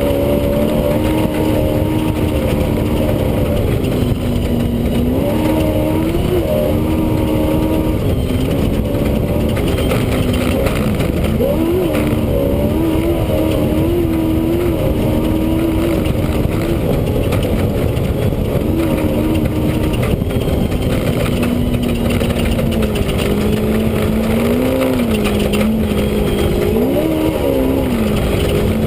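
Off-road race vehicle's engine heard from inside the cockpit, running hard under a constant heavy rumble. Its note holds fairly steady but rises and falls in short surges several times as the throttle comes on and off.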